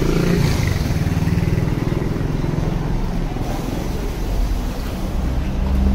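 Street traffic: motor vehicles running close by, a steady low engine rumble.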